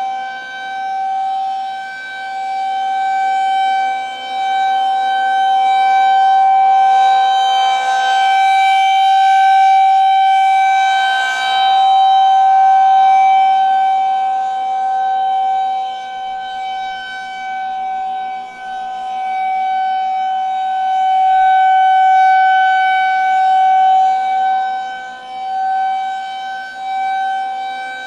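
Federal Signal 2001-130 electromechanical warning siren sounding the steady Full Alert tone, one held pitch that does not rise or fall. Its loudness swells and fades slowly every several seconds as the rotating siren head sweeps toward and away.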